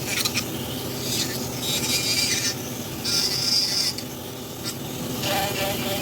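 Rasping strokes on wood, several separate passes each about half a second to a second long, as the carving is shaped and smoothed. A steady low hum runs underneath.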